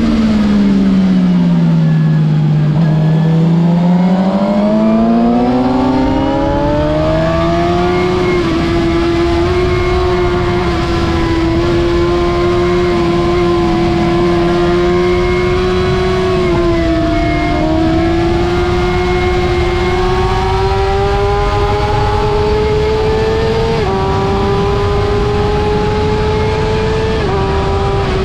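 A 2006 Suzuki GSX-R750's inline-four engine at track speed, heard onboard: its pitch falls over the first few seconds as the bike slows, then climbs steadily as it accelerates, and holds a high, fairly steady note for the rest, with a brief dip partway through and two small jumps in pitch near the end. A steady rush of wind noise runs under it.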